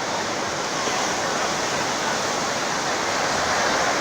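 Ocean surf breaking and washing up the beach: a steady rush of water that swells slightly near the end.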